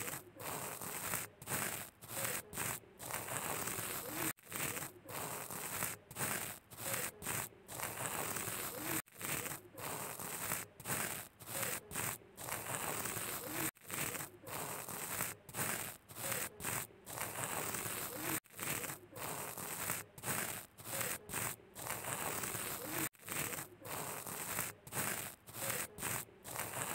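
A flat card spreader scraping over a glued jigsaw puzzle, spreading puzzle glue across the pieces: a quick run of short scratchy strokes, two or three a second.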